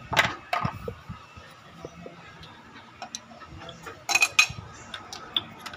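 Scattered metallic clicks and clinks of tools and engine parts being handled during timing-belt work: two sharp taps near the start, small ticks in between, and a quick cluster of clinks a little after four seconds in.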